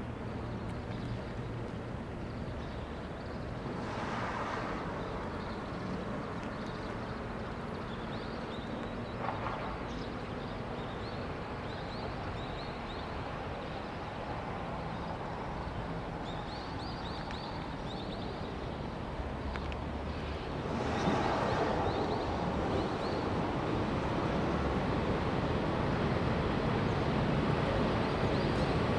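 Steady outdoor background, then from about two-thirds of the way in the running noise of an approaching JR West 115-series electric train, growing steadily louder as it nears.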